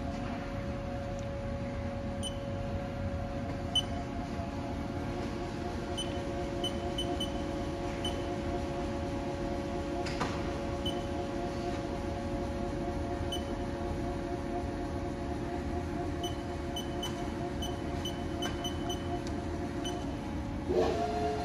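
Haas TL3 CNC lathe with its spindle and chuck spinning: a steady electric whine of several fixed tones, with faint short high pips now and then. Near the end the whine suddenly steps to a new pitch, as with a change in spindle speed.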